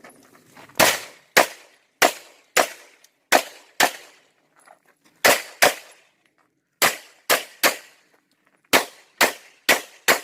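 Pistol shots fired in quick pairs and strings, about fourteen sharp cracks in all, each with a short ring-out, with brief pauses between groups.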